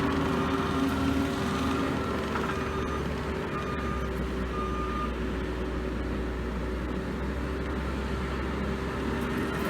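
Skid steer engine running steadily under work, with a few short high beeps sounding in the first half.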